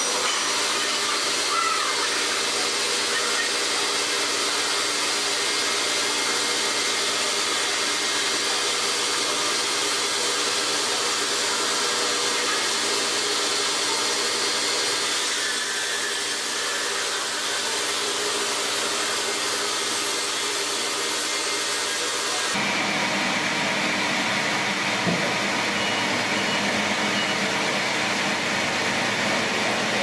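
Sawmill machinery running: a steady mechanical whine over a hiss. The sound changes abruptly about three-quarters of the way through.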